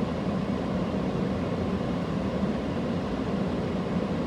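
Steady low rumble of a car driving, heard from inside the cabin: road and engine noise with no distinct events.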